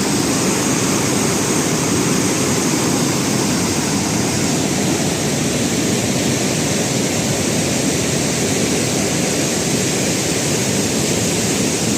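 Steady, loud rush of falling water.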